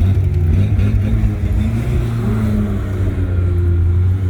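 Car engine running at low revs as the car is driven slowly, a steady low hum with a short rise in pitch about two seconds in.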